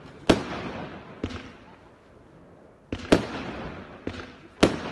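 A 16-shot, 25 mm consumer fireworks cake firing: three sharp bangs of shells bursting, shortly after the start, about three seconds in and near the end, with quieter pops between them. Each bang trails off into an echo.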